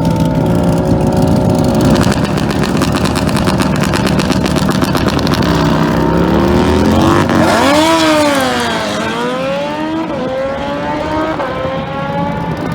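Motorcycle engine running loudly. Its pitch sweeps up sharply and falls back about eight seconds in, then climbs again.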